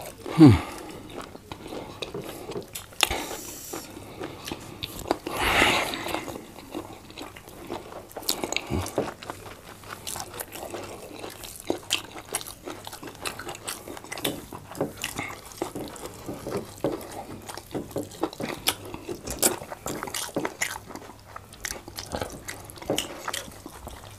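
Close-miked eating sounds: chewing, lip smacks and many small wet clicks as soft fufu with vegetable soup and meat is eaten by hand. There is a short low thud about half a second in, and a breathy rush around six seconds.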